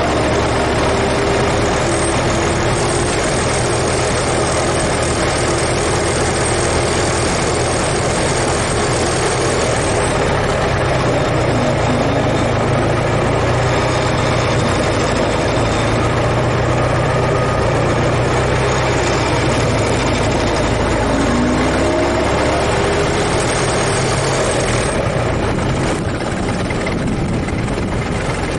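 Ford Model T four-cylinder engine running steadily, with a dense, even noise over it. The engine note rises and falls briefly a few times.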